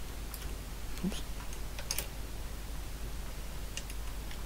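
Light metallic clicks from a MADAS 9E mechanical calculator's division mechanism as its cancel-division button and levers are worked by hand. A few separate clicks come at uneven intervals.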